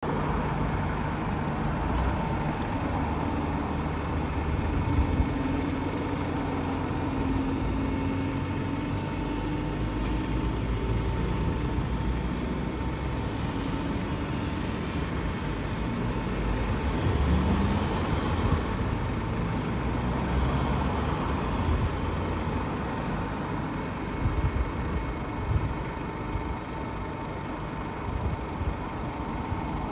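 Single-deck bus engine idling steadily while the bus stands parked, with cars passing on the road alongside.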